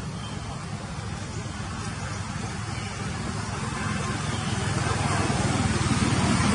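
Motor vehicle approaching: a low engine rumble that grows steadily louder.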